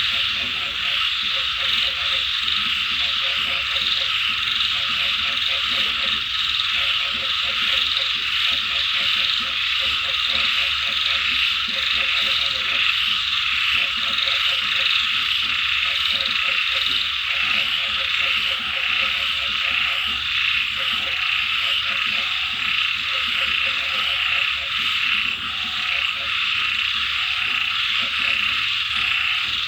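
A chorus of frogs croaking in rapid pulsed runs that go on throughout, over a dense, steady, high-pitched chorus of insects.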